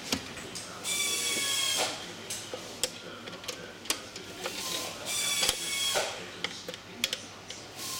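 Power screwdriver running in two short bursts of about a second each, driving screws into a plastic chair seat pan. Sharp clicks and knocks of the plastic parts being handled come in between.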